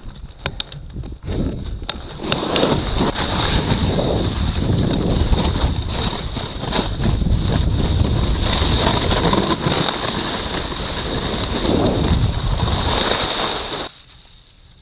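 Snowboard riding downhill: wind rushing over an action camera's microphone together with the board sliding and scraping over partly hard-packed snow, preceded by a few sharp clicks at the start. The rushing noise cuts off abruptly near the end.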